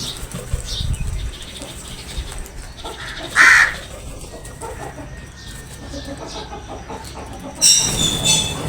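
Crows cawing: one short loud caw about three and a half seconds in, then a longer, harsher call near the end.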